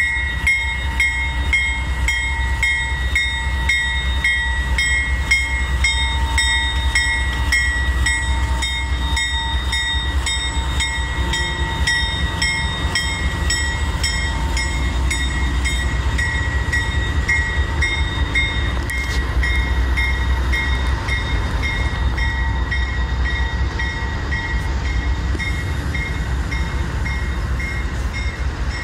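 GE diesel-electric freight locomotives, a Dash 9-44CW leading, pulling slowly past with a steady low engine rumble. The locomotive bell rings about two to three strokes a second and fades away past the middle.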